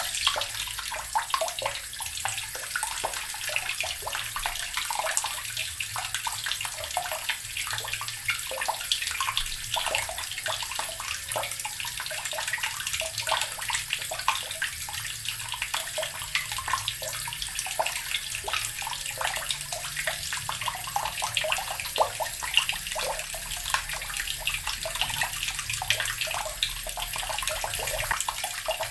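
Water running steadily from a tap and splashing into the basin below, an unbroken stream with a constant fine patter of splashes.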